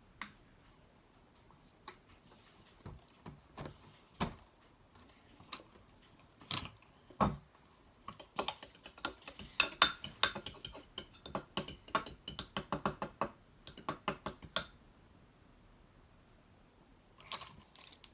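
Slime being stirred and worked as contact solution activates it, giving sharp clicks and crackles. They come singly at first, then as a fast dense run for several seconds before stopping, with a couple more near the end.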